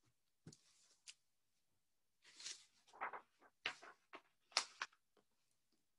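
Faint, scattered rustles and soft knocks of a picture book being handled and lowered, in a near-silent room.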